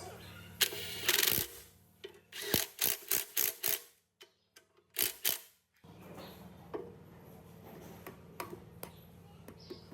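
Metal parts and tools clicking and knocking in quick clusters, like a ratchet or parts being fitted, over a low steady mechanical hum that drops out for a few seconds and returns.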